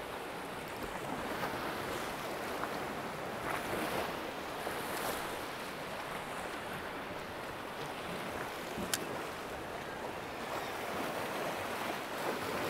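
Sea swell surging and washing over rocks, a steady rush that rises and falls gently as waves break, with some wind on the microphone.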